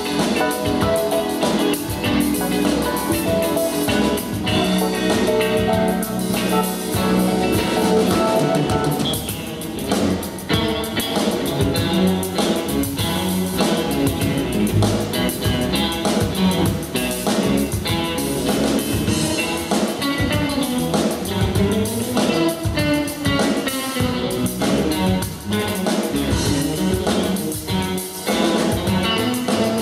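Live band playing an instrumental funk tune: electric bass, two electric guitars, keyboards and drum kit, with a steady drum beat.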